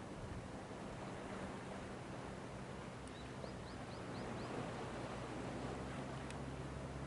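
Steady wind and surf noise with a low hum underneath. About halfway through, a small bird gives a quick run of five short rising chirps.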